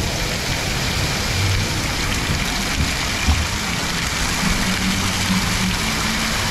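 Steady hiss and patter of water spraying and raining down from splash-pad fountains and jets.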